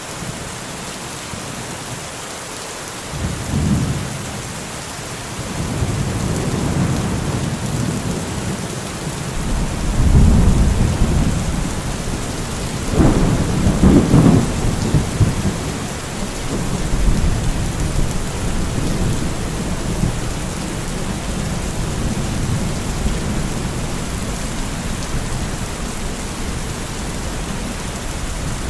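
Steady rain with thunder rumbling several times. The heaviest peals come about ten seconds in and again a few seconds later.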